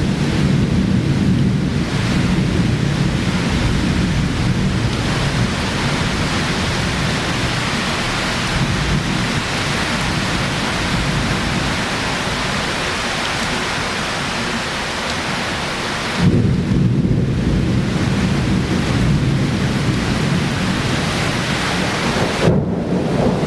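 Torrential cloudburst rain pouring down steadily, with a deep low rumble underneath through the first few seconds and again for the last third.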